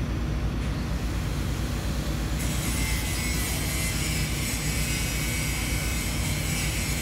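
Crawler crane's diesel engine running steadily, a low hum, while it holds a steel bridge girder on its hook. A steady high hiss joins in about two and a half seconds in.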